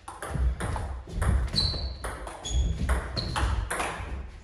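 Table tennis rally: a celluloid-type plastic ball clicking back and forth off the rubber-faced bats and the table top in a quick, uneven series of sharp knocks. A few short high squeaks come in about the middle.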